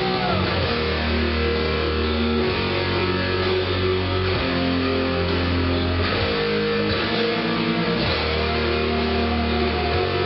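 Electric guitar playing a heavy metal riff, with notes held for a second or more over a steady low bass part.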